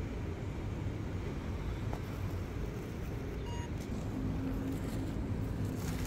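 Street traffic: motor vehicles running and passing with a steady low rumble. Near the end, plastic courier mailer bags crinkle as they are handled.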